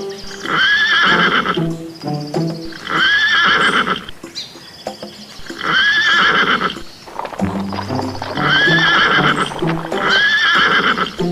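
A horse neighing again and again, the same whinny about every two seconds, over light background music.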